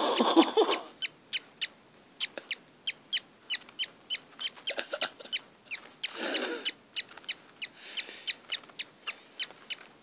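Budgerigar chick, five days old, peeping over and over: thin, high chirps, each falling in pitch, about three a second.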